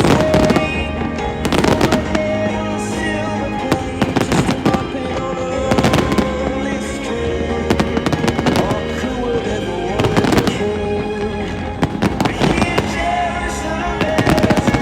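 Fireworks bursting in quick volleys of bangs, one cluster about every two seconds, over music.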